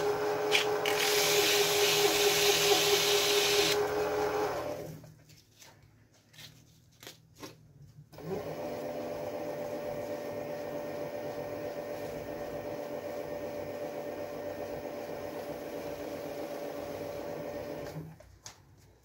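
Small benchtop metal lathe running, with a loud hiss over its motor hum for the first four seconds, then winding down. After a few clicks it starts again about eight seconds in, runs with a steady hum for about ten seconds, and stops near the end.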